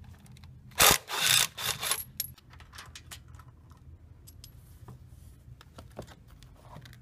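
Metal parts being handled while a UTV's bolted-on skid plate is taken off: a loud clatter and scrape about a second in, then scattered light clicks and taps of bolts and the steel plate.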